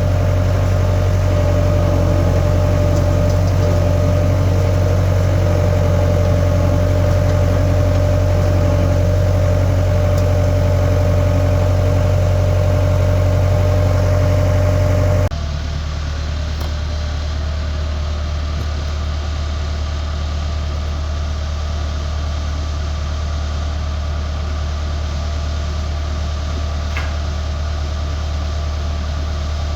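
Skid steer engine running steadily with a low hum. About halfway through, the sound cuts abruptly to a slightly quieter, lower hum.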